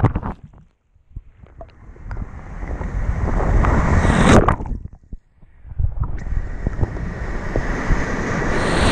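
Small surf waves breaking and sloshing right against a camera held at the waterline. The rushing water builds twice, the first surge cutting off about four and a half seconds in and the second swelling toward the end.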